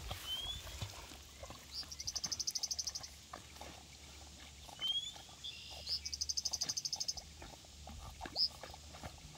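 Outdoor animal calls: a high, rapid pulsed trill of about twelve pulses a second, heard twice for about a second each, with a few short rising chirps in between.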